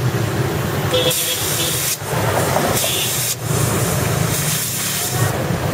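Air hissing at a motorcycle's rear tyre valve in three bursts of about a second each, over a steady low hum.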